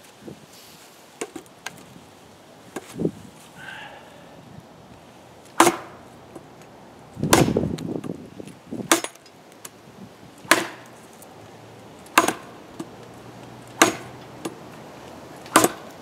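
Nature Xplore machete chopping a dry, hard branch on a wooden chopping block: a few light knocks in the first three seconds, then seven heavy blade strikes into the wood, about one every second and a half.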